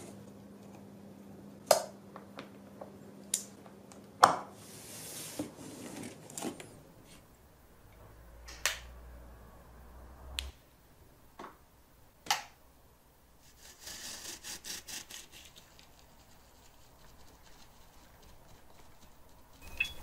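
Scattered sharp clicks and knocks of hands handling a small plastic combination padlock on the clasp of a cardboard model, with a brief fast rattle about three-quarters of the way through.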